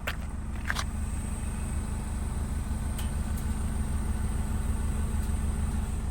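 Honda HR-V running with a steady low engine hum, over which a faint high hiss sets in about a second in. The source of the hiss is unknown to the owner. Two short clicks come at the very start.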